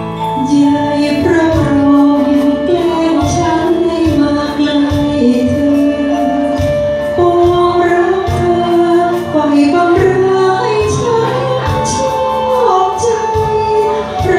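A woman singing into a handheld microphone, holding long notes over amplified backing music with a steady beat.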